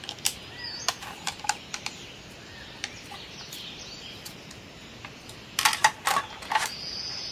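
Hard plastic toy road pieces clicking and clattering as they are handled and fitted together: a few sharp clicks in the first two seconds, then a quick cluster of clacks near the end as the assembled road is laid down.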